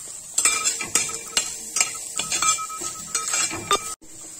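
Metal spatula scraping and clinking against a wide metal pan as onions and spices are stirred in hot oil, in about a dozen irregular strokes with a faint ringing from the pan. The sound cuts off abruptly near the end.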